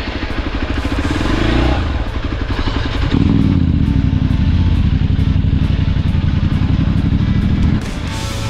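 Hero XPulse 200's single-cylinder engine running, climbing in revs over the first two seconds, then pulling steadily. It drops away near the end as music comes in.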